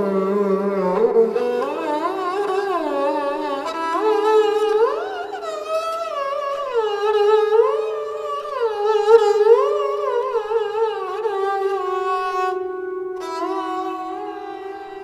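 Sarangi being bowed, playing long slides that glide smoothly up and down across several notes over a steady lower note, then settling on a held note near the end. These are meend-style glides that move over many notes within the raga from one point to another, rather than over one or two.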